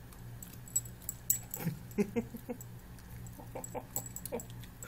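Dog licking and chewing a frozen FrostyPaw treat: wet mouth clicks and smacks mixed with short squeaky notes, busiest from about a second and a half to four and a half seconds in.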